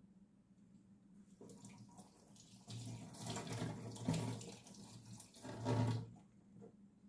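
Water running from a kitchen tap, starting faintly about a second in, running strongly for about three seconds, then shut off near the end.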